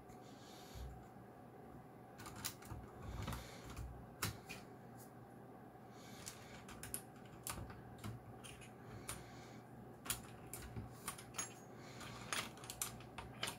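Clicky blue-switch mechanical keyboard keys being pressed in irregular, scattered clusters of sharp clicks, with short gaps between.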